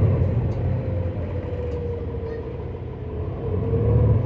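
Cummins L9 diesel engine and drivetrain of a 2019 New Flyer XD40 bus, heard from inside the cabin while under way: a low rumble with a whine that climbs in pitch, eases off, and climbs again near the end as the bus pulls away.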